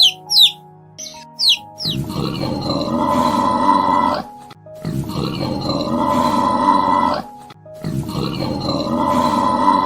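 A few quick, falling bird chirps over light background music, then a single farm animal call of about two and a half seconds repeated three times with short gaps between.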